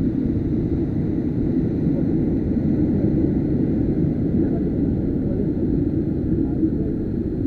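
Heavy sea surf surging and breaking against a rocky shore, a steady low rumble.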